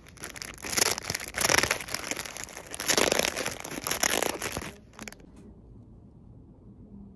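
Thin plastic snack wrapper being handled and crinkled, in several loud crackling bursts over about five seconds, then stopping suddenly, leaving faint room tone.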